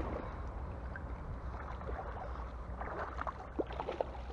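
Water splashing as a hooked peacock bass thrashes at the surface close to the bank, with a few sharper splashes about three to four seconds in.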